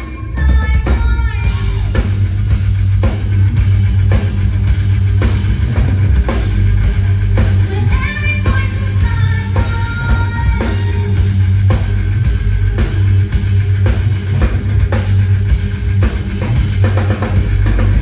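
Live rock band playing loudly: a driving drum kit, electric guitar and a heavy bass, with some sung or lead lines over the top.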